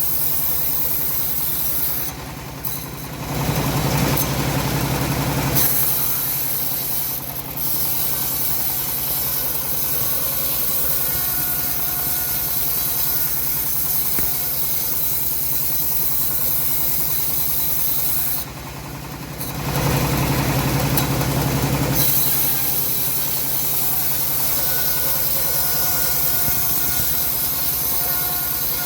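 Home-built bandsaw sawmill running steadily while its blade saws through teak with a rasping hiss. The sound dips briefly and then grows louder for a couple of seconds twice.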